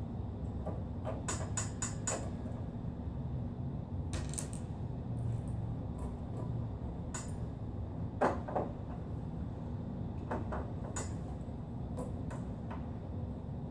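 Scattered small clicks and taps of a screwdriver, screws and metal parts being handled while the side housing and electronics board of an HP Designjet Z3100 printer are unscrewed, with a sharper double clatter about eight seconds in. A steady low hum lies underneath.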